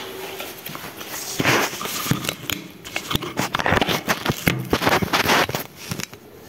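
A PVC ceiling panel being cut to width: irregular scraping, clicks and crackles of the hollow plastic strip.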